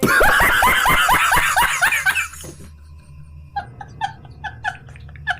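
Laughter: a loud burst of rapid laughing for about two seconds, falling in pitch, then after a pause a run of shorter, evenly spaced laughs, about three a second.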